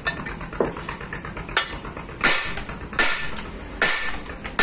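Repeated metal-on-metal blows from a steel pipe being driven down onto a steel shaft assembly, about one every three quarters of a second. The blows are light at first and louder in the second half.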